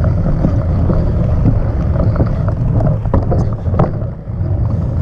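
Wind buffeting the microphone of a camera on a moving bicycle, over a steady rumble of tyres on dirt and pavement. A few sharp rattles and knocks from the bike come about three to four seconds in.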